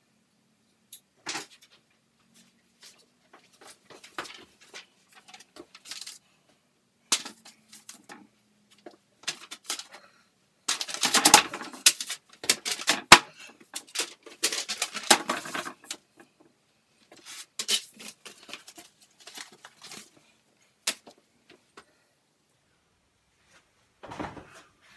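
A sheet of printer paper handled and rustled by hand, with scattered light clicks and taps; the rustling is loudest and densest for a few seconds around the middle.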